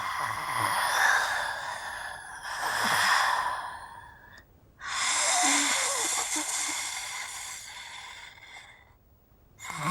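A woman's raspy, breathy zombie vocal effect: two long hissing exhalations, the first fading out about four seconds in and the second starting just after and fading out near the end.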